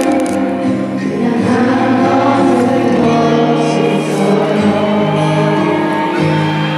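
A male pop vocal group sings a song live over backing music through an arena sound system, with long held notes, as heard from the audience.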